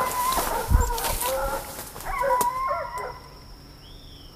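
Several hunting dogs baying together in long, wavering calls that fade away about three seconds in: the pack holding a wild boar at bay.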